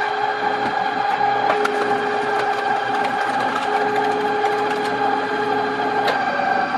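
Hydraulic log splitter's motor and pump running with a steady hum while the ram drives a log against the wedge. There are a few sharp clicks, and the hum steps up in pitch about six seconds in.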